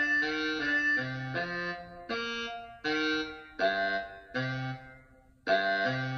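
Concert band music from a concerto for baritone saxophone and band. Held chords change under a moving line, then from about two seconds in five short accented chords are struck, each one dying away before the next.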